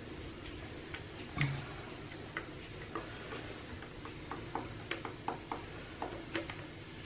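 Irregular small plastic clicks and ticks, about a dozen, spread unevenly, as a plastic bottle of Harpic descaling gel is squeezed and tipped to pour the gel out.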